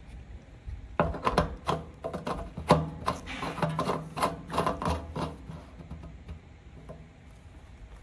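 Plastic fuel-tank cap being screwed back onto the filler neck, its threads rasping and clicking in a quick run of short strokes that stop about five seconds in.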